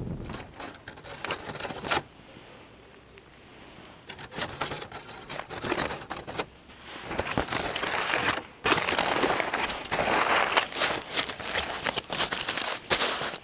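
Aluminium foil crinkling as a foil-wrapped food parcel is picked up and handled beside campfire embers; the crinkling grows louder and busier in the second half. Near the start, fire crackling comes briefly.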